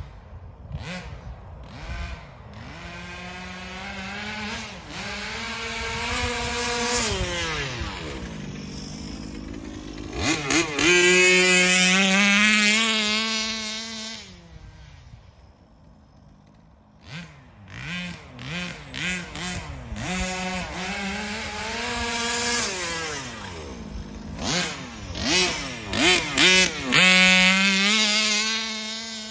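HPI Baja 5B 1/5-scale RC buggy's two-stroke gas engine being driven hard, revving up to full throttle in long runs and falling back toward idle. In between come several quick throttle blips, with a lull about halfway through.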